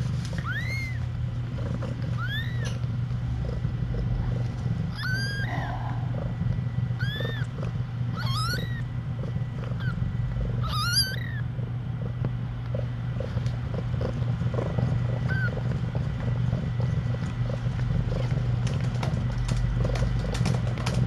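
Newborn kittens mewing: short, high-pitched cries that each rise and fall in pitch, about eight of them in the first eleven seconds, then one faint one, over a low steady hum.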